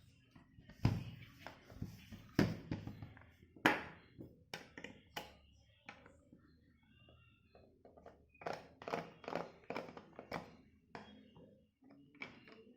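Irregular clicks, taps and knocks of a plastic clamp multimeter case being handled and opened, with a quieter spell about halfway through.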